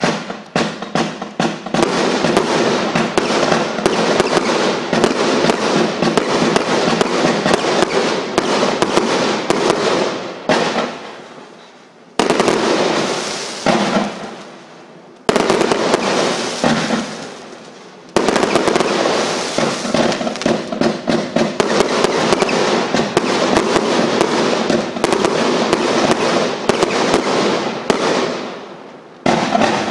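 A 1.3G display firework cake firing a rapid barrage of shots and crackling that starts suddenly. It comes in several runs separated by brief lulls, three around the middle and one near the end.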